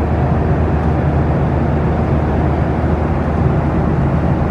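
Steady cabin noise of a Boeing 737-800 in flight: engine and airflow noise heard from inside the cabin, an even low-heavy hiss at a constant level.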